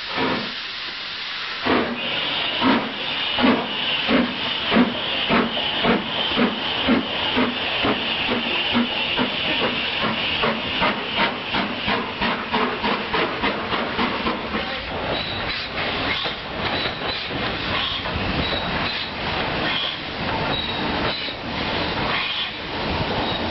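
Steam locomotive getting under way: sharp exhaust chuffs about one and a half a second, quickening, over a steady hiss of steam. In the second half the beats run together into a continuous rumble and hiss.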